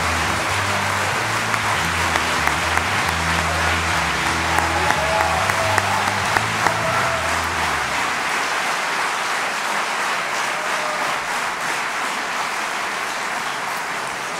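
Theatre audience applauding a performer's entrance, over walk-on music with a low bass line that stops about eight seconds in; the applause carries on and fades near the end.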